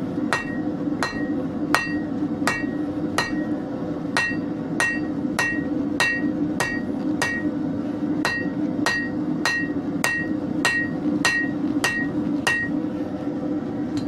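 Hammer blows on hot leaf-spring steel over an anvil, fullering a knife blank: steady strikes about three every two seconds, each with a short high ring, stopping near the end. A steady low hum runs underneath.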